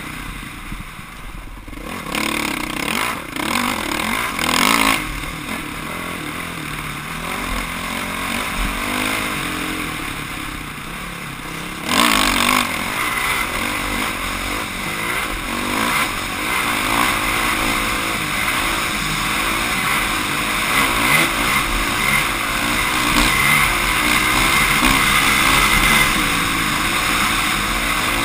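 Off-road motorcycle engine running and revving up and down under a rider on the move, with rattling and scraping from the bike and trail. There are sudden louder bursts about four and twelve seconds in, and the overall level rises gradually.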